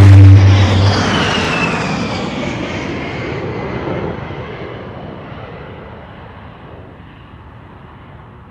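The end of a bass-boosted burst from an A-10 Warthog's GAU-8 Avenger cannon, a heavy low drone that cuts off about a second in. Then the jet passes with a falling whine and fades away.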